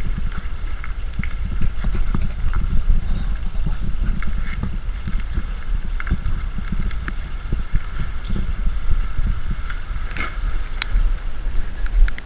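Low rumble of handling and wind noise on a body-worn action camera's microphone, with scattered sharp clicks and knocks at irregular moments.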